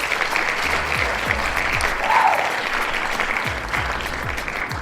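Audience applause over background music with a steady thumping beat about twice a second.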